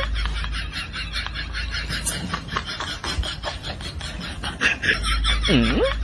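A looping comedy background track: a quick, even pattern of ticks with a swooping cartoon sound effect that dips and then rises in pitch about five and a half seconds in.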